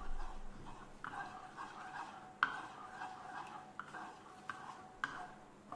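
Wooden spatula stirring and scraping a thick cream sauce around a nonstick wok in repeated strokes, about one a second, with a sharp knock about two and a half seconds in.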